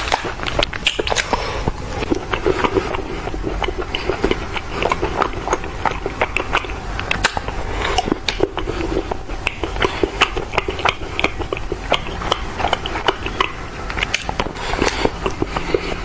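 Bar of milk chocolate being bitten and chewed close to a clip-on microphone: many small sharp snaps and wet chewing clicks throughout.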